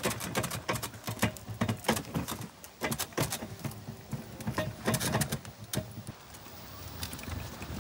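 Irregular knocks and rattles from a loaded Greenworks folding wagon and the camping gear piled on it as it is pulled over brick pavers. The knocks thin out about six seconds in, leaving a steadier low rolling rumble.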